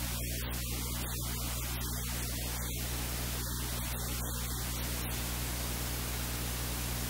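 Steady hiss with a low electrical hum underneath: the noise of the recording itself, with no distinct cooking sounds standing out.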